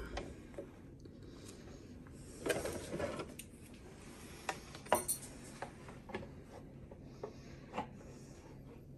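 Clicks, knocks and light rattles of plastic attachments being fitted to a KitchenAid stand mixer that is switched off: the flat beater and the plastic pouring shield knocking against the mixer head and the stainless steel bowl. A short burst of clatter comes about two and a half seconds in and a sharp knock around five seconds in.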